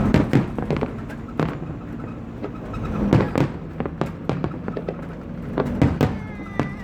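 Fireworks salute bursting overhead: a run of sharp bangs and crackles at irregular intervals, with clusters of louder bangs near the start, about three seconds in and near the end.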